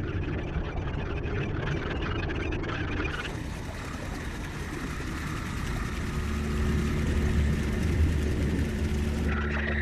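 Boat engine running with a steady low hum under a noisy wash. The sound changes abruptly about three seconds in and again near the end.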